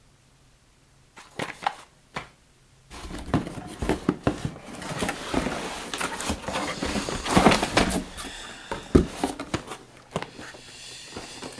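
Cardboard packaging being handled and rummaged through in a large cardboard box. A few light knocks come first, then a long stretch of scraping, rustling and bumping of cardboard boxes against each other, which eases off near the end.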